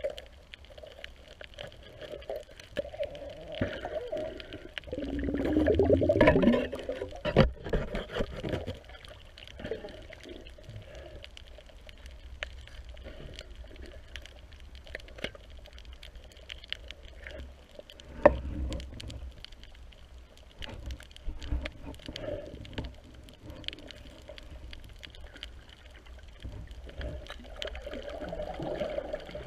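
Underwater sound picked up by a camera in its housing on a shallow coral reef: water rushing and sloshing around the camera as the diver moves, loudest about five to seven seconds in and again near the end, over a constant fine crackle of clicks. A single sharp knock comes about eighteen seconds in.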